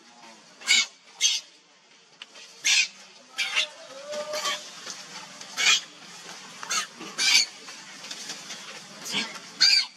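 Baby monkey giving short, high squeals at irregular intervals, about nine in all.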